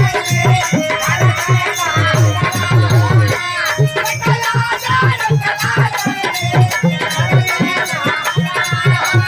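Live folk stage music: a steady hand-drum beat with jangling kartal clappers and a wavering melody line over it.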